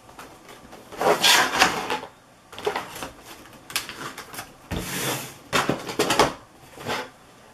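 Plastic drone packaging being handled: the clear plastic insert is lifted off its foam tray, giving a series of irregular rustling and scraping bursts, the loudest about a second in and about five seconds in.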